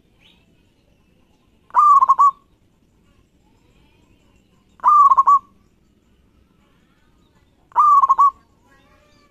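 Local zebra dove (perkutut) singing: three cooing calls about three seconds apart, each a clear note breaking into a few quick pulses.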